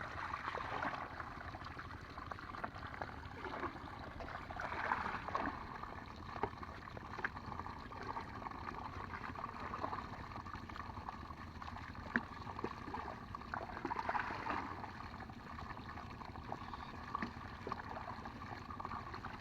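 Water gurgling and splashing, with a few small sharp clicks scattered through it.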